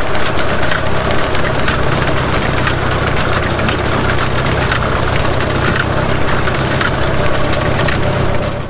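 Ford Model T rail car running along the track: the four-cylinder engine drones steadily under a dense clatter and rattle of the wheels and chassis on the rails.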